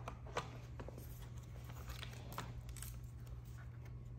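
Faint clicks and light knocks of hard plastic and metal parts as a stroller wagon's axle assembly is handled and positioned against its frame, over a steady low hum.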